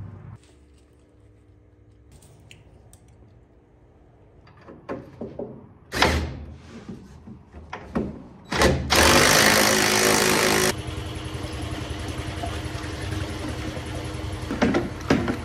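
Garage work under a car: a few tool clanks and knocks, then a loud hiss lasting about two seconds. It gives way to a steady rush of liquid being poured from a plastic jug into a bucket, with quick clicks near the end.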